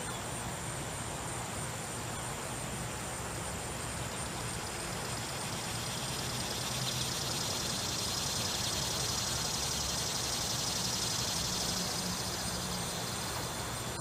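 Outdoor ambience with the siren silent: a high, steady insect buzz that swells through the middle and eases off near the end, over a low steady rumble.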